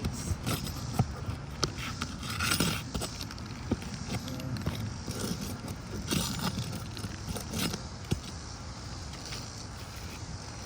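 Metal shingle-removal tool clicking, tapping and scraping under an old asphalt shingle as roofing nails are worked loose, with irregular sharp clicks and a couple of longer scrapes.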